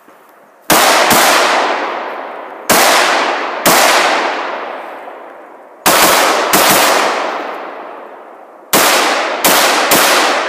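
Semi-automatic rifle firing nine shots, in quick pairs and singles a second or two apart. Each shot leaves a long echo that dies away over a second or two.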